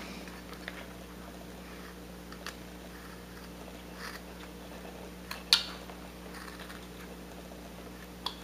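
A carving blade taking small cuts in wood: a few faint, short scraping and clicking cuts, with one sharper click about five and a half seconds in.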